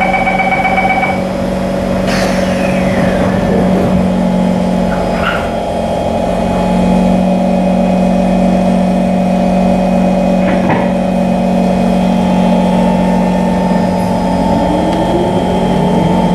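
Interior of a Kawasaki C151 MRT car standing at the platform, with a steady electrical hum from the train's equipment. A door warning tone ends about a second in, the doors then shut, and near the end a rising whine begins as the traction motors start the train moving.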